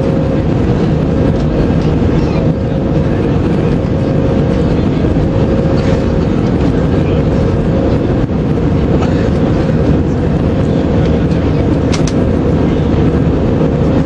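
Steady in-flight cabin noise of an Airbus A319-112: the dense low rumble of its CFM56 turbofan engines and the airflow over the fuselage, with a constant mid-pitched hum.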